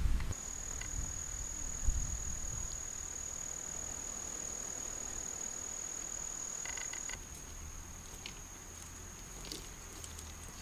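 An insect trilling in one steady, high-pitched note, like a cricket, that becomes quieter about seven seconds in. A thump sounds at the very start and a sharp knock near two seconds.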